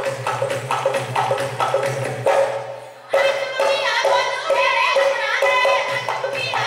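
Live Punjabi Giddha folk music: women singing over a rhythmic percussion beat. The music falls away briefly about two and a half seconds in and comes back in sharply about a second later.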